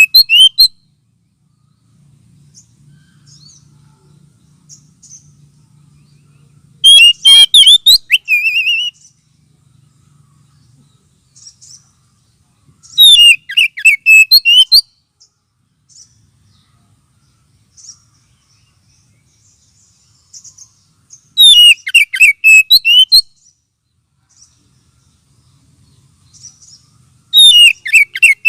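Oriental magpie-robin (kacer) calling in four loud bursts of rapid chirps and whistles, each lasting one and a half to two seconds and repeating every six to eight seconds. It is a recorded lure call (suara pikat), also played to rouse a kacer that lacks fighting spirit.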